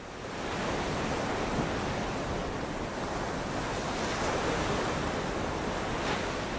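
A steady rushing noise with no tones, fading in at the start.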